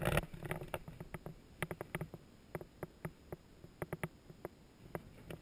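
Irregular light clicks and taps, some in quick pairs or runs, at a low level.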